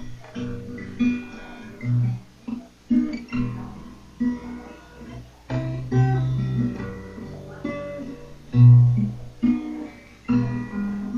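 Guitar playing a slow instrumental passage: separate picked notes over recurring low bass notes.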